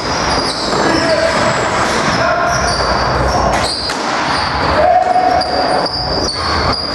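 Sounds of box lacrosse play echoing in a large arena: players calling out, shoes squeaking on the floor, and sharp knocks of sticks and ball.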